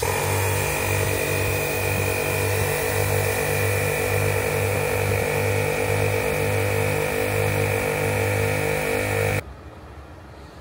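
Northern Ridge twin 12-volt onboard air compressor running under load as it pumps up tyres through an air-up manifold, a steady pulsing hum with a high whine. It cuts off suddenly about nine seconds in as it loses power, which the owner puts down to the circuit breaker.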